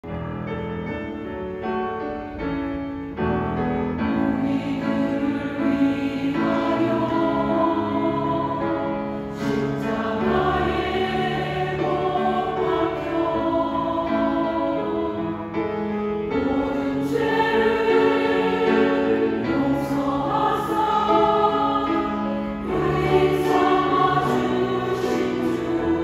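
Women's church choir singing a hymn in parts with piano accompaniment, the sound growing fuller about three seconds in.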